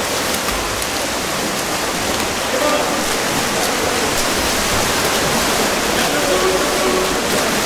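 Steady splashing and churning of water from water polo players swimming and contesting the ball, with faint shouting voices.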